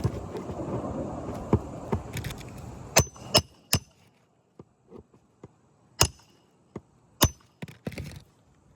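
Roofing work on asphalt shingles during their removal: a rough scraping rustle for the first couple of seconds, then sharp cracks and knocks, three in quick succession about three seconds in and two more later, with a few small clicks between.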